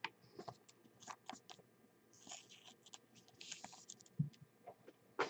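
Faint scattered clicks and short scrapes as a trading card is handled and slid into a clear plastic holder, with a soft thump about four seconds in.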